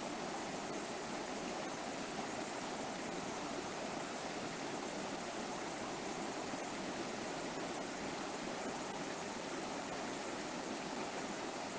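A river flowing steadily over rocks, an even rushing of water with no breaks.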